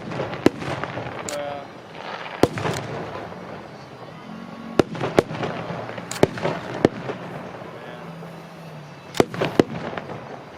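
Aerial fireworks shells bursting overhead in sharp bangs at irregular intervals, often in pairs. A crowd of spectators murmurs underneath.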